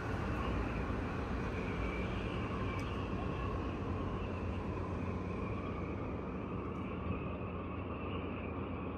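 A steady, unchanging rumbling noise with a low hum beneath it.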